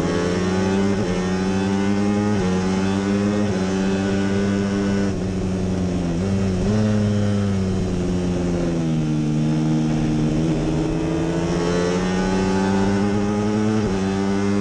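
Onboard sound of a J-GP3 racing motorcycle's 250 cc single-cylinder four-stroke engine running hard at high revs, with wind rush. The engine note breaks sharply several times as gears change, and it sags and climbs again through a corner.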